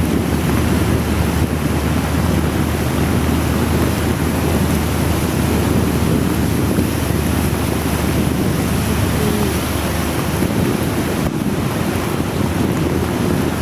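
Riding wind buffeting the microphone on a moving motorcycle in heavy rain: a loud, steady rushing noise, with a low hum beneath that thins out about ten seconds in.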